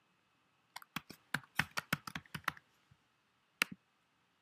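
Computer keyboard keys typed in a quick run of about ten keystrokes as a password is entered, then one more click about a second later as it is confirmed.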